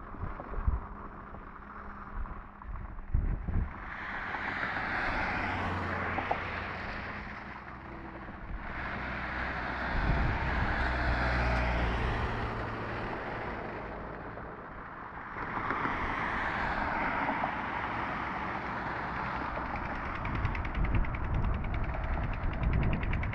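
Road traffic: three vehicles pass one after another, each swelling and fading over a few seconds, with low engine hum under the middle one. Wind buffets the microphone at the start and near the end.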